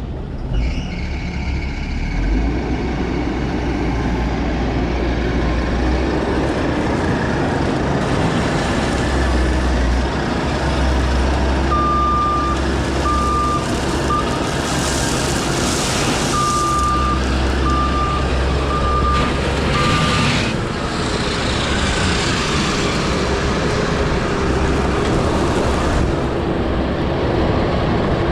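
2017 Takeuchi TS80VS skid steer's diesel engine running steadily. Its reverse alarm beeps about once a second in two runs around the middle, and there are a couple of brief hisses.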